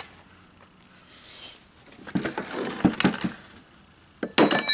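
Small metal parts and tools clattering and knocking for a second or so, then a sharp metallic clink that rings briefly near the end.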